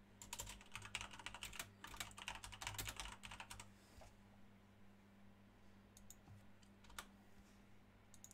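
Typing on a computer keyboard: a quick run of keystrokes for about three and a half seconds, then a few single clicks.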